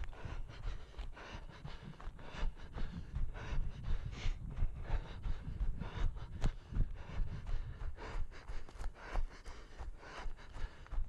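A runner's heavy panting breaths and quick, even footfalls on dry forest floor, about three steps a second.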